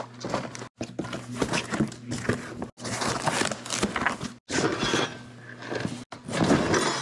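Cardboard moving boxes and packaged groceries being handled: flaps folded over, boxes shifted and lifted, giving rustling cardboard with knocks and scrapes. The sound drops out abruptly to silence four times for a moment.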